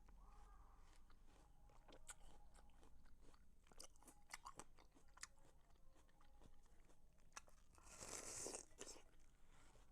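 Quiet close-up sounds of a person eating watermelon: wet clicking and crunching as the fruit is chewed, with a louder bite or burst of noise about eight seconds in.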